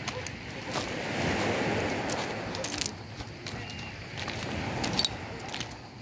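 Footsteps crunching on a shingle beach of flat pebbles: irregular clicks and crunches of stones shifting underfoot over a steady background noise.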